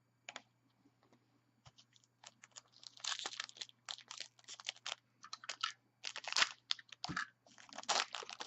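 A trading card pack being handled: its wrapper crinkling and tearing and the cards rustling against each other, in short quick rustles that get busier about three seconds in.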